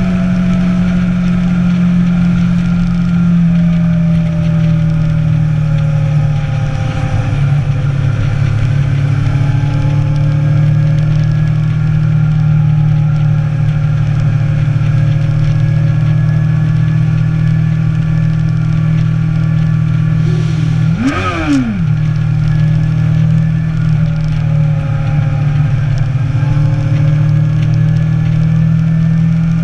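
Motorcycle engine running steadily under way, its pitch slowly rising and falling with the throttle. About three quarters of the way through, the revs jump sharply and drop straight back in a quick blip.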